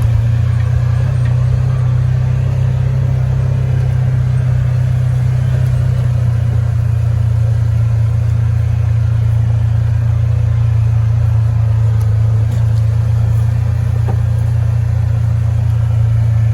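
Motor vehicle engine running steadily at cruising speed, a constant low drone heard while riding in the vehicle.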